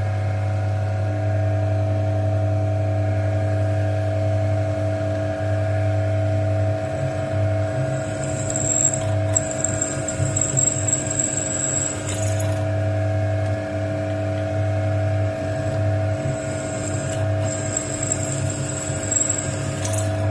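Drill press motor running steadily while a freshly resharpened twist drill bores into aluminium, the cutting adding a high whine twice, from about 7 to 12 seconds in and again from about 16 to 20 seconds. The bit cuts cleanly, like a new drill.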